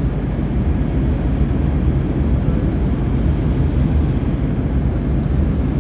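Airplane engine noise: a steady low rumble that holds even and unchanging.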